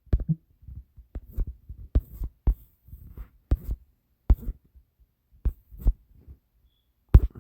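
A string of irregular light taps and knocks, roughly two a second, close to the microphone, with soft handling noise between them.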